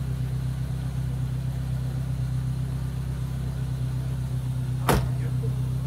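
Car engine idling steadily with a low, even hum. A single sharp knock about five seconds in.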